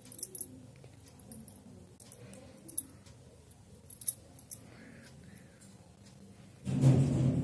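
Light, scattered clinks and jingles, as of bangles on fast-moving wrists. Near the end comes a loud, muffled burst of noise, like something brushing the microphone.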